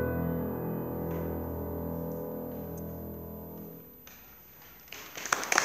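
A grand piano's final chord held and dying away to near silence. Applause breaks out loudly near the end.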